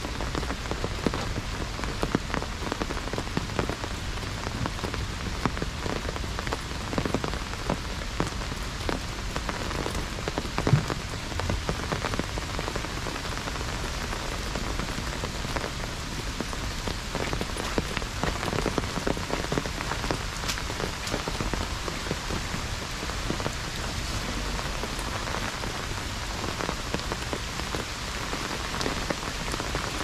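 Heavy rain drumming on an umbrella overhead: a dense, irregular patter of drops, steady throughout, with one sharper, louder drop about eleven seconds in.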